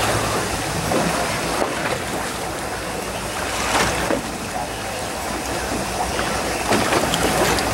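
Steady wash of sea water around a fishing boat's hull over the low rumble of the boat's engine.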